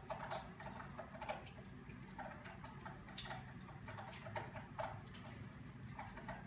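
Crochet hook working yarn: faint, irregular small clicks and rustles as single crochet and increase stitches are made.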